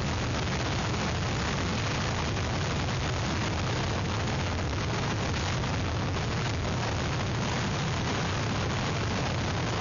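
Hurricane-force wind blowing steadily across an outdoor webcam microphone: a constant low rumble of wind buffeting with an even hiss over it, never letting up.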